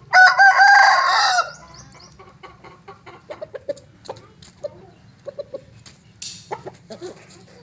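Asil rooster crowing once, a short crow lasting about a second and a half, followed by scattered soft clucks and clicks.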